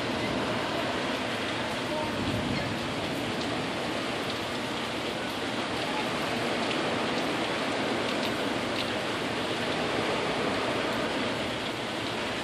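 Steady tropical-storm rain, an even hiss with a few faint sharp drop ticks.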